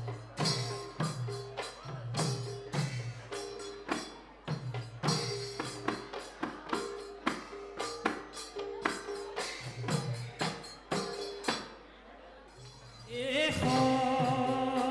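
Traditional Bhaona percussion: a drum with deep strokes that drop in pitch, together with ringing cymbals, playing a steady beat of about two strokes a second. Near the end the beat stops and a sung chant with long held notes begins.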